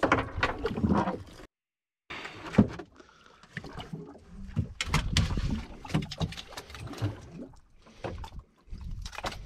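Water and wind noise aboard a small open boat, with scattered knocks and clicks as a fish is unhooked with pliers, one knock standing out about two and a half seconds in. The sound drops out completely for about half a second at around one and a half seconds in.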